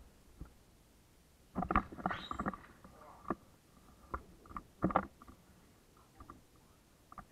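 Bathwater sloshing and splashing in a tub as a person in a soaked fake-fur coat shifts about, in irregular bursts. The biggest splashes come about two seconds in and again near five seconds.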